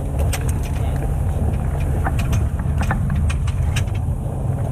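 Steady low rumble of car cabin noise, with a scattering of short, sharp crackling clicks, thickest in the second half.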